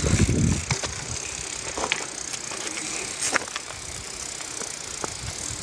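BMX bicycles rolling along an asphalt road, with wind rushing over the microphone, loud low buffeting in the first half second and scattered light clicks and rattles.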